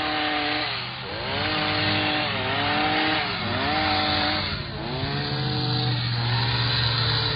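Small two-stroke engine of a handheld gas trimming tool running near full throttle, its pitch dropping and recovering about four times as it bogs under load while cutting through branches.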